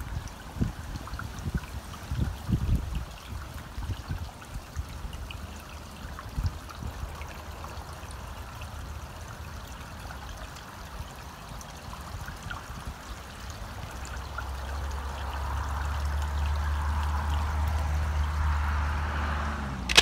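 Water trickling steadily into a garden pond. A few low bumps come in the first seconds, and a low rumble builds over the last few seconds.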